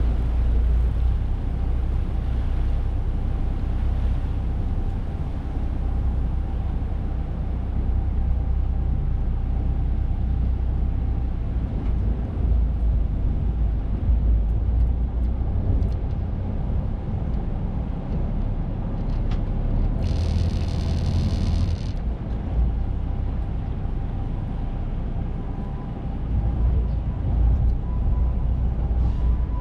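Tour boat's engine running with a steady low rumble; a brief hiss lasts about two seconds some two thirds of the way through.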